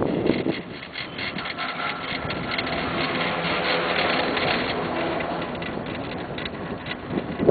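Running clatter of a 1996 Poma Italia detachable quad chairlift on the way up: many quick rattles with a faint steady whine, over wind on the microphone. A gust buffets the microphone near the end.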